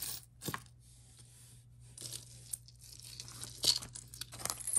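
Jewelry being handled: rustling with a few light clicks as one piece is put down and the next is picked up.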